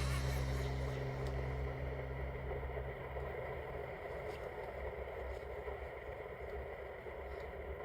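A low held drone that fades out over the first few seconds, under a steady hiss.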